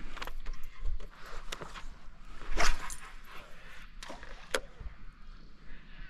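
Fishing tackle being handled during a cast: scattered clicks and rattles, with one louder short rushing burst about two and a half seconds in and a sharp click a couple of seconds later.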